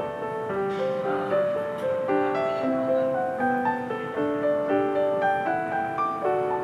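Background piano music: a melody of held notes, one after another.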